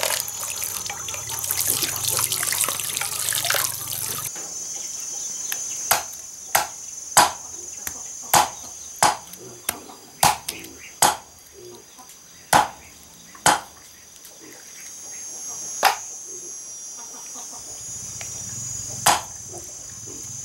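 Hands sloshing a plucked wild chicken in a basin of water for about four seconds. Then a cleaver chops through chicken on a wooden chopping block, about ten sharp single chops at uneven intervals.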